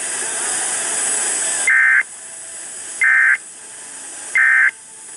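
NOAA Weather Radio sending three short warbling EAS (SAME) data bursts about a second and a half apart, the end-of-message code that closes the weekly alert test. Steady radio hiss comes before them.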